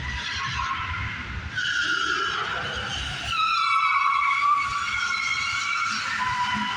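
Car tyres squealing as test-drive cars are taken too fast around a tight track. One squeal starts about a second and a half in, then a louder one, sliding slightly down in pitch, takes over midway and holds for a few seconds.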